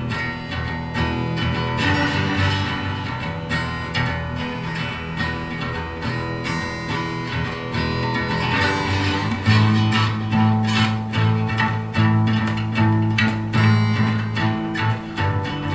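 1972 Fender Stratocaster electric guitar improvising a run of quickly picked notes. From about halfway through, low notes ring out more strongly under the line.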